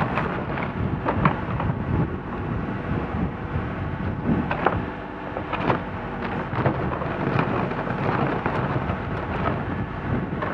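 JCB 3CX backhoe loader's diesel engine running under hydraulic load while the rear digging bucket scrapes and knocks through gravel and stones, with scattered sharp clatters of stone.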